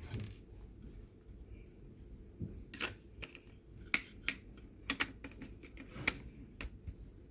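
Scattered sharp clicks and taps, about a dozen at irregular intervals, from small laptop parts and tools being handled and fitted during reassembly.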